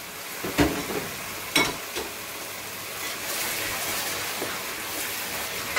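Two sharp knocks against a steel pot about a second apart, the second with a short metallic ring, then a wooden spoon stirring a sizzling tomato and onion mixture, with a steady frying hiss.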